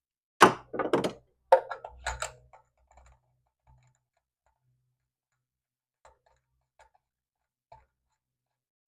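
Ratchet with a spark plug socket clicking and clanking as a spark plug is worked out: a quick run of sharp metal clicks and knocks, then a few faint ticks near the end.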